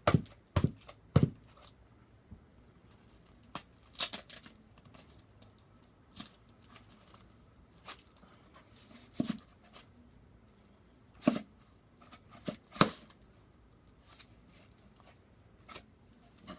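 Cardboard box being opened with a skate tool's screwdriver: three sharp jabs in the first second or so, then scattered tearing and crinkling of the packaging.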